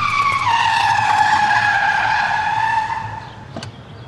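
Car tyres screeching in a skid, one long squeal that falls slightly in pitch and dies away after about three seconds, followed by a short click.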